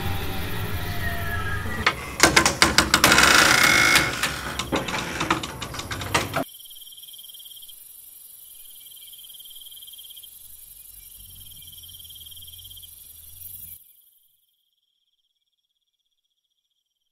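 Horror-film soundtrack: an ominous music bed, then a loud burst of rapid clattering hits starting about two seconds in and lasting some four seconds. It cuts to crickets chirping in a high, steady, pulsing trill, which stops about three seconds before the end.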